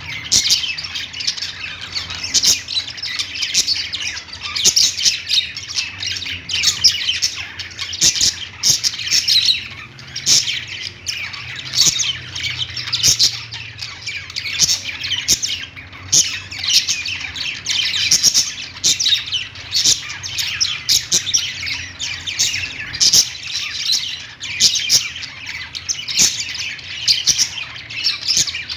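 Budgerigars chirping and chattering continuously, many short overlapping calls with the odd harsher squawk.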